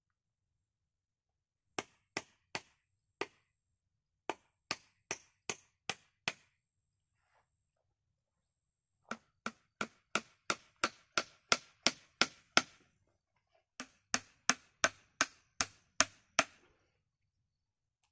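A hatchet striking wood: sharp, rapid knocks, about three a second, in four series with short pauses between, the later series louder.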